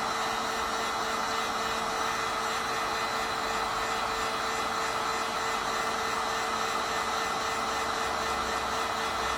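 Heat gun running steadily, a constant rush of blown air with a steady hum beneath it, heating a watch's glued-on screen to loosen it for removal.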